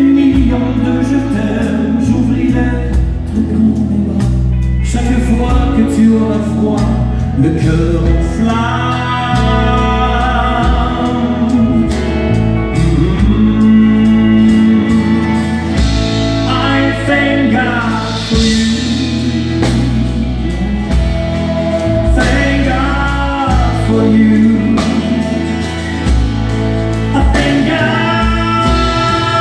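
Live country band performing a French-language song: a man singing at the microphone over his acoustic guitar, with electric guitars, bass and drums.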